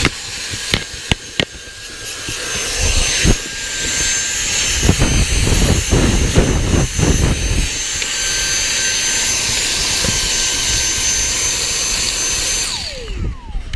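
Dyson cordless vacuum cleaner running in turbo mode with a steady high-pitched whine, its nozzle knocking a few times and then scraping over the car's floor. Near the end the motor is switched off and the whine falls away.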